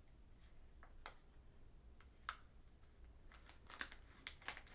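Scissors snipping through a plastic blind-bag wrapper: faint, scattered small clicks, a few at first and then coming closer together in the last second and a half.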